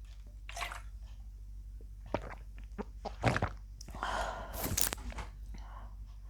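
Drinking Pepsi from a plastic bottle: swallowing and mouth sounds with a few sharp clicks and knocks, then a short noisy rush of air about four seconds in.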